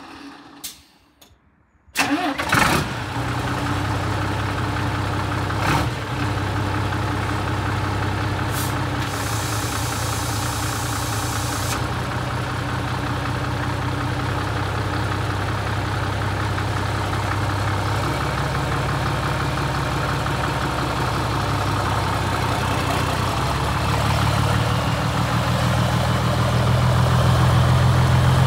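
Scania P92H truck's diesel engine cranking and catching about two seconds in, then idling steadily. A high hiss lasting about two seconds comes partway through, and the engine grows louder near the end.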